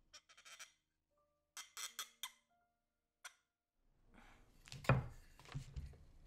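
A few short clicks and clinks with brief steady tones over dead silence, an edited-in sound effect. Then a loud wooden knock about five seconds in as a wooden dowel is pressed into an inkle loom's upright.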